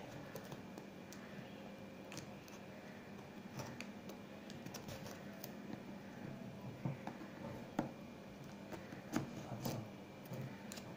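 Fingernails scratching and picking at a plastic-wrapped cardboard phone box, making faint crinkles and scattered small clicks, with a few sharper ticks in the second half.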